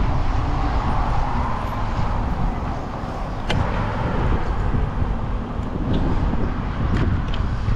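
Road traffic noise: a steady low rumble, with a sharp click about three and a half seconds in.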